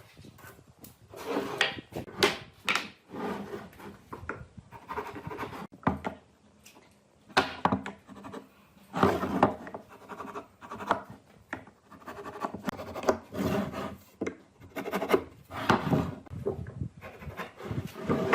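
Irregular rubbing and scraping strokes on wood, coming in short bursts with brief pauses between them.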